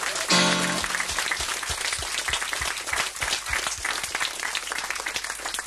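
Live audience applauding at the end of a song, with a brief loud held tone about half a second in and a series of low thuds under the clapping in the first few seconds.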